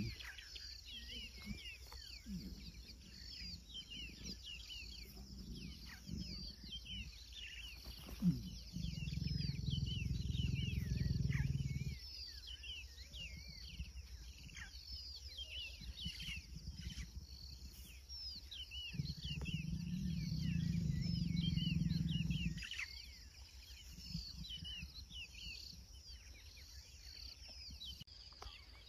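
Lions growling low, in two long growls of about three and a half seconds each, one about a third of the way in and one about two thirds in, over a steady chorus of chirping birds. A sharp click comes just before the first growl.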